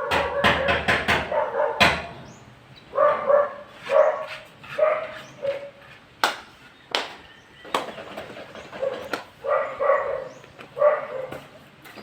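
A dog barking repeatedly in short barks, in two runs, with a few sharp knocks in between.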